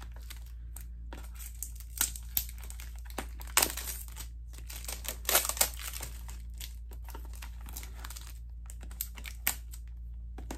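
A small cardboard box of eye-mask patches being opened and its packaging handled: irregular crinkling and rustling broken by sharp clicks and taps, the loudest a few seconds in.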